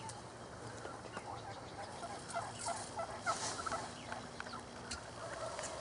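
Wild turkey gobblers gobbling: a rapid rattling run of notes about two to four seconds in.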